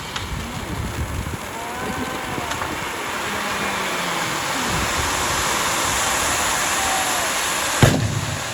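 Steady outdoor crowd din at a bonfire night event, with a single sharp, loud bang near the end.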